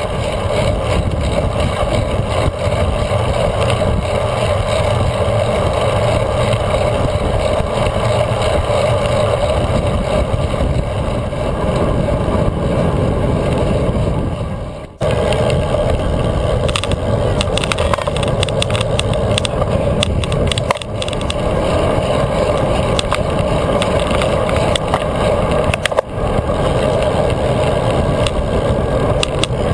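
Wind rushing over a bike-mounted GoPro and road noise from a road bike rolling on asphalt at speed: a loud, steady rumble that dips briefly about halfway through and again near the end.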